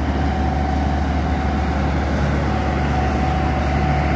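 Engine of a passing motor vessel running steadily: a low hum with a thin, steady whine above it.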